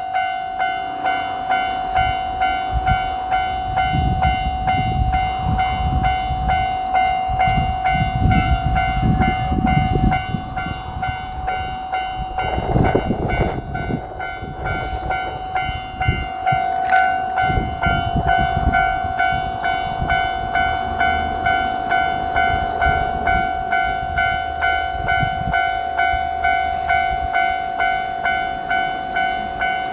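Japanese railroad crossing warning bell ringing steadily in a regular repeating clang. A 1500 series diesel railcar passes over the crossing, its engine and wheel clatter loudest from about 4 to 13 seconds in, then fading.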